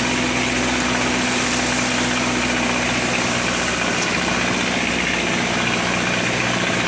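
Outrigger boat's engine running steadily while underway, with a constant hiss of water and wind.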